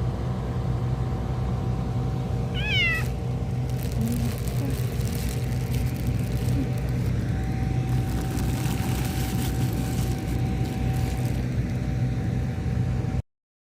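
A stray cat meows once, briefly, about three seconds in, over a steady low hum. The audio cuts off near the end.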